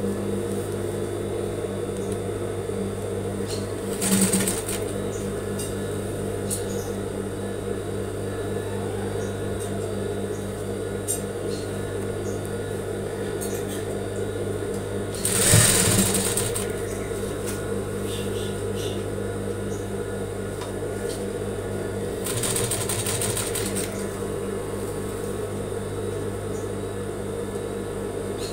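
Sewing machine running steadily, stitching a long basting stitch with the stitch length lengthened. Three short rustles of the fabric being handled come through the running: about four seconds in, around the middle (the loudest), and about two-thirds of the way through.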